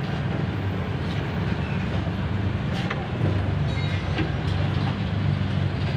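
Honda CR-V's four-cylinder engine idling steadily with a low hum while its cooling system is bled of air after a radiator replacement. A sharp click about three seconds in, and a few faint ticks a second later.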